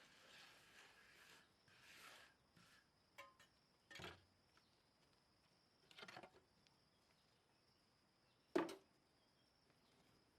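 Quiet handwork sounds: a few faint scrapes early, then three short knocks a couple of seconds apart, the last the loudest. Under them runs a steady high insect drone.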